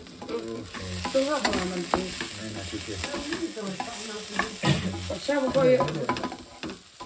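Food frying and sizzling in a pan while it is stirred, with a steady sizzle and scattered clicks and scrapes of a spoon against the pan.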